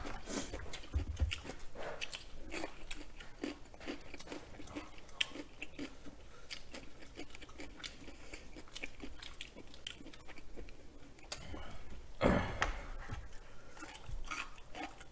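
Close-miked chewing and eating of creamy noodles and chicken, with many small wet smacks and clicks. A brief louder thump about twelve seconds in.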